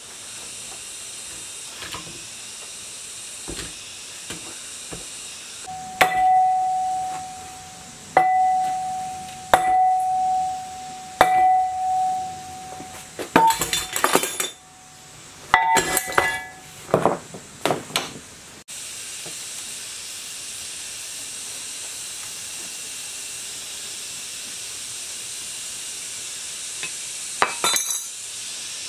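A metal part struck four times at an even pace, each strike ringing on the same clear tone, followed by a quick run of clinks and clatter of metal pieces. Then a steady hiss starts abruptly and carries on.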